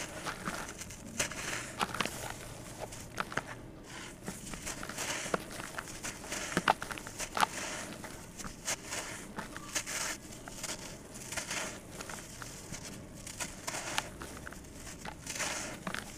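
Soft sand-cement chunks crumbled by gloved hands, with crumbs and dry grains falling into the bowl. A steady run of many small, irregular crackles and gritty crunches.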